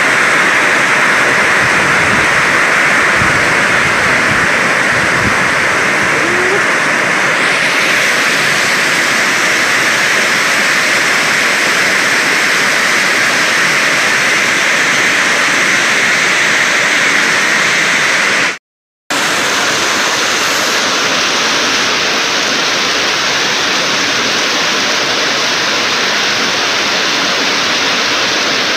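Heavy rain pouring down steadily, a dense loud hiss with no let-up. It cuts out for about half a second roughly two-thirds of the way through, then carries on.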